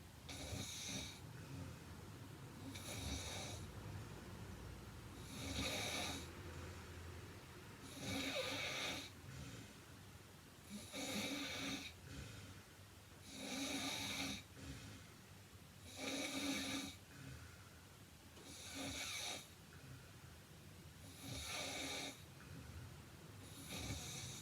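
A heavily built (105 kg) woman snoring in her sleep: about ten snores, each about a second long, coming in a steady rhythm roughly every two and a half seconds.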